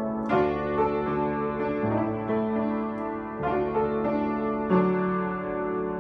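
Upright piano played solo: a slow run of chords, each struck and left ringing, about five strikes, the last one near the end sustained and fading.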